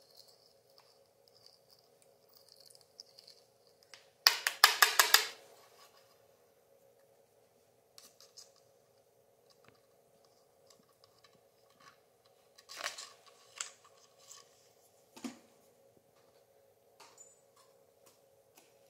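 A hand against the glass of a sand-art frame: a quick run of about ten rapid, scratchy strokes about four seconds in, then a few softer scattered taps and knocks later, over a faint steady hum.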